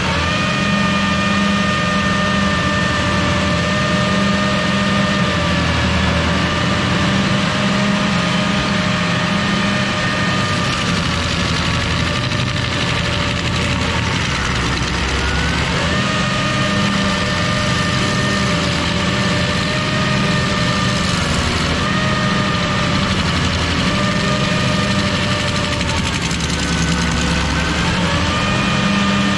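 Carlton 7015 tracked stump grinder running hard with its cutter wheel grinding into a stump. The engine note is loud and steady but sags in pitch and recovers about every five or six seconds as the wheel takes each bite of wood.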